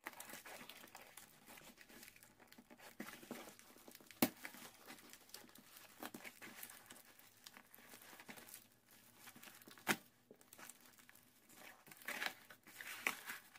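A cardboard shipping box being torn open by hand: cardboard and packaging ripping and crinkling, with sharp snaps about four seconds in and again near ten seconds. Near the end the crinkling turns busier as the bubble wrap inside is grabbed.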